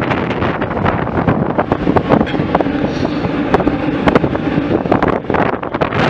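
Wind buffeting the microphone of a camera on a velomobile moving at about 36 km/h in strong wind, with many sharp clicks and rattles.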